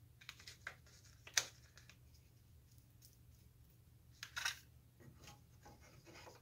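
Quiet brush work: a glue brush dabbing and tapping against a small tin as hide glue is spread on a wooden block. A sharp tap comes about a second and a half in, and a short cluster of taps a little after four seconds.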